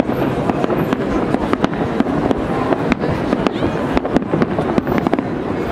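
Aerial fireworks bursting in a rapid, irregular run of bangs and crackles, several a second.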